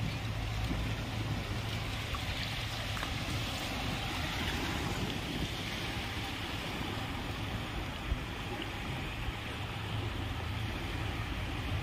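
Steady wash of small waves on a sandy shore, with a low steady hum underneath.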